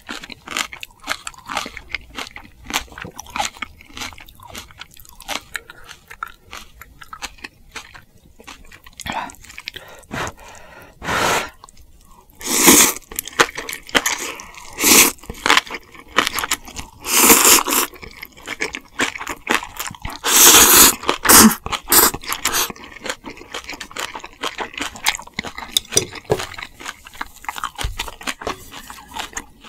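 Close-miked eating: a person chewing and crunching food with many quick wet clicks. Several louder, longer bursts come in the middle stretch.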